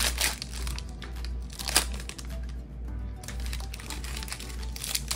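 Foil wrapper of a Topps Chrome trading-card pack crinkling and crackling as it is handled and crumpled in the hands, with a sharp crackle a little under two seconds in.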